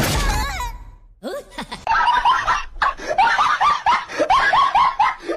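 A loud noisy burst at the start that fades over about a second, then a high-pitched, rapid snickering laugh: short rising-and-falling 'heh' sounds, about four a second, from about two seconds in.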